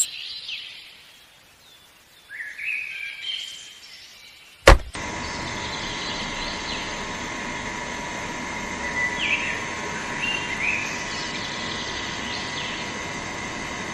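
Birds chirping over near quiet, then a sharp click about five seconds in and a small DC motor water pump starts running with a steady thin whine, birds still chirping over it.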